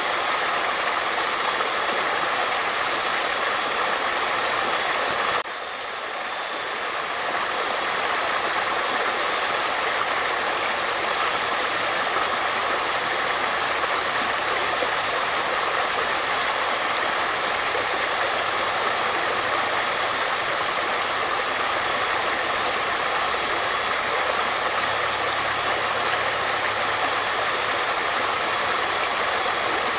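Flowing water rushing steadily. About five seconds in it drops suddenly and then swells back up over a couple of seconds.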